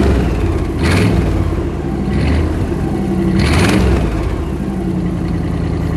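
1957 Cadillac Eldorado Biarritz's 365 cubic-inch V8 with two four-barrel carburetors, heard at its dual exhaust tips. It is revved in a few short blips over the first four seconds, then settles back to a steady idle.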